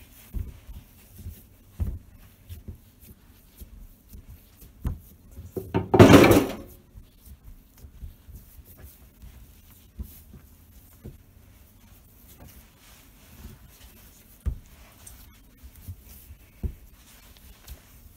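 Hands kneading cookie dough on a plastic cutting board: scattered soft thumps and knocks as the dough is pressed and turned. One brief, louder rush of noise comes about six seconds in.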